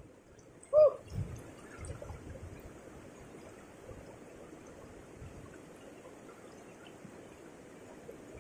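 River rapids rushing steadily over rocks. About a second in, one short chirp that rises and falls in pitch is the loudest sound, followed closely by a low thump.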